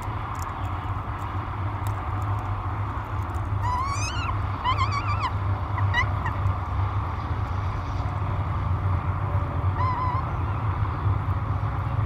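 Peregrine falcon chick giving short, wavering begging calls as it is fed: a cluster of calls about four to six seconds in and one more near ten seconds. A steady low rumble runs underneath.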